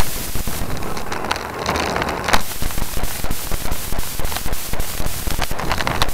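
Wind buffeting the microphone of an action camera riding on a moving road bike, a steady rushing noise broken by many irregular crackles and knocks from road vibration.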